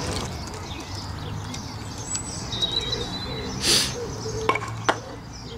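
Croquet mallet striking a ball with one sharp knock about three and a half seconds in, followed by two lighter clicks. A few brief bird chirps come before it, over a steady low outdoor hum.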